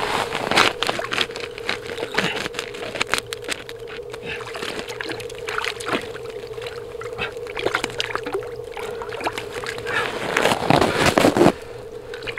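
Water splashing and sloshing in an ice-fishing hole as a hooked lake trout thrashes at the surface, heaviest near the end. Scattered clicks and a steady hum run underneath.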